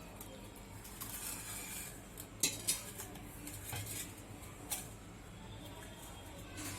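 Kitchen pots and utensils clinking and knocking, with a few sharp knocks spread through, while curdled milk is strained through a cotton cloth.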